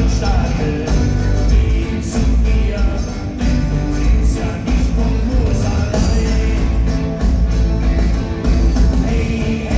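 Live rock band playing: drums, bass, electric and acoustic guitars.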